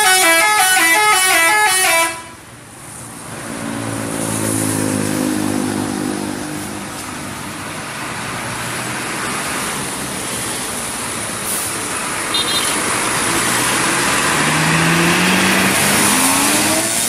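Bus 'telolet' multi-tone horn playing a quick run of stepped notes for about two seconds. After it comes a vehicle engine running, its pitch rising over the last few seconds as it speeds up.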